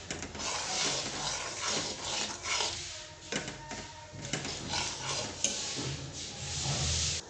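A spoon stirring turmeric milk in a pan on the stove as it comes to the boil, with irregular scraping and clinks against the pan.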